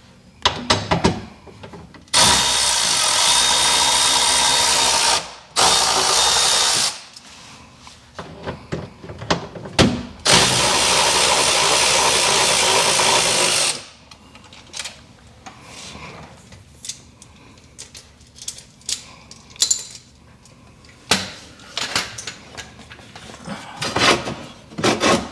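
A pneumatic (air-powered) tool running in three steady bursts, the first and last about three seconds long and a short one of about a second between, working on the exhaust fasteners. Clanks and knocks of tools and metal parts come between the bursts.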